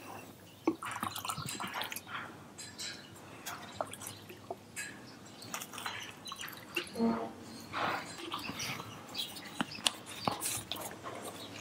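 Liquid hair-care concentrate being poured into a plastic pump sprayer, with irregular drips, splashes and small clicks and knocks of plastic bottles being handled.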